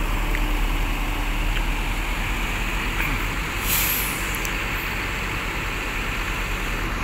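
Diesel coach engines running as a bus pulls away, a steady rumble, with a short hiss of compressed air about halfway through, like an air-brake release.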